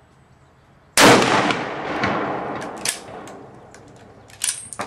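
A .270 Ruger single-shot rifle fires once about a second in, and the report echoes for about two seconds. A few sharp clicks follow near the end as the single-shot action is worked.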